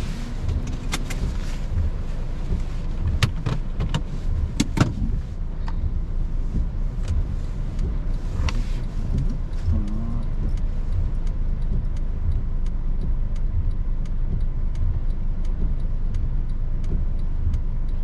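Inside a small Honda car driving in heavy rain: a steady low rumble of engine and road noise under the hiss of rain on the car. There are a few sharp clicks in the first five seconds and faint regular ticking in the second half.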